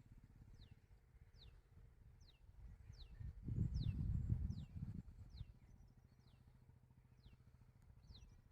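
A small bird repeating a short, high, downward-sliding call, a little more than one a second, over a low rumble that swells for a couple of seconds midway.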